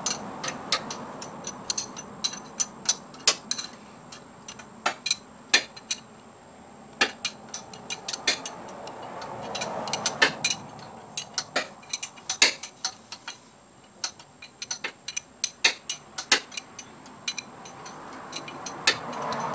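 Hand ratchet clicking in short irregular runs of quick ticks as the motor mount bracket bolts are run in and tightened.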